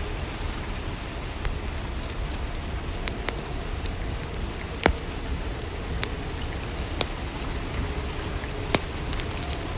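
Steady rainfall ambience, an even hiss of rain, with a few sharp clicks or pops scattered irregularly through it.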